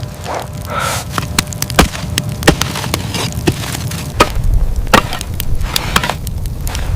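Wood cracking and snapping in many sharp, irregular cracks over a low steady rumble.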